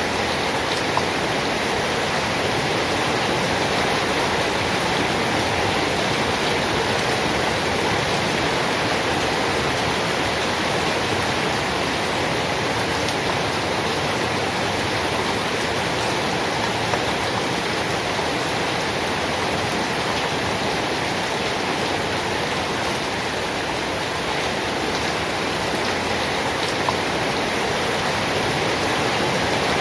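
Steady heavy rain, an even, unbroken hiss with a few faint single drop ticks.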